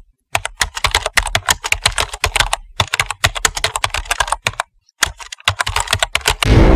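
Fast computer keyboard typing, a dense run of key clicks with two short pauses. Just before the end a loud ringing musical hit swells in.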